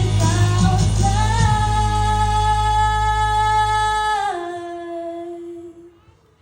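The end of a song: a female voice holds one long note over the music, then the note drops lower and fades out, and the backing bass stops partway through.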